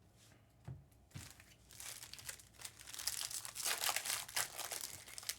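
Trading card pack wrappers crinkling and tearing as packs are opened, after two soft thumps about a second in.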